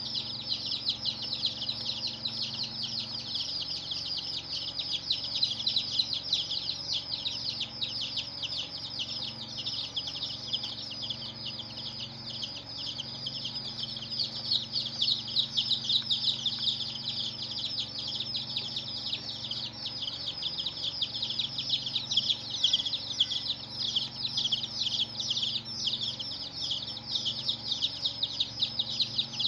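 Many baby chicks peeping at once, a dense, continuous chorus of rapid high chirps, with a faint low hum beneath.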